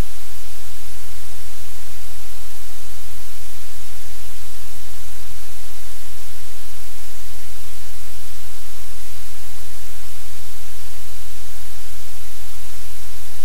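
Loud, steady electrical static: a low hum under a constant hiss, unchanging throughout, with no other sound standing out.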